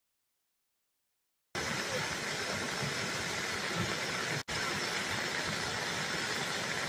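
About a second and a half of dead silence, then the steady rushing noise of a fast-flowing muddy flash flood, which cuts out for an instant about halfway through.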